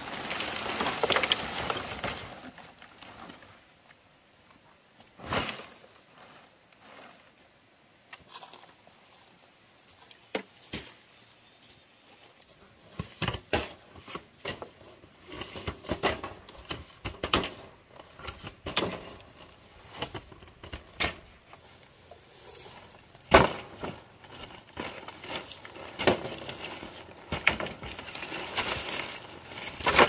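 Dry palm-leaf thatch rustling and crackling as it is handled and stepped on, with a few separate sharp knocks of bamboo poles.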